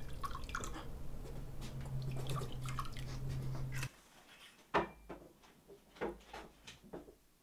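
Liquid being poured and crystal tumblers handled on a wooden shelf, with small clinks and taps over a low steady hum. The hum cuts off almost four seconds in, leaving a few soft separate knocks of objects being handled on a table.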